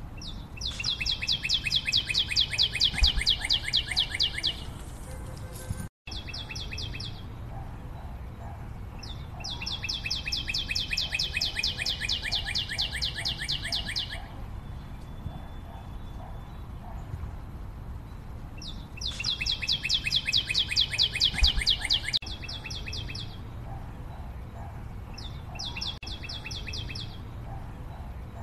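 Bird chirping in rapid trills: trains of high, evenly repeated chirps lasting a few seconds each, coming four or five times with pauses between, over a steady low background noise.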